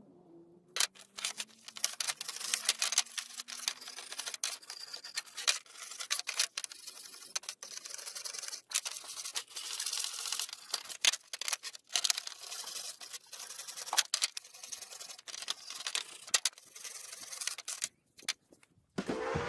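Rust being scraped and scrubbed off old steel pliers: a dense, scratchy run of strokes with sharp clicks of metal that stops shortly before the end. Music comes in right at the end.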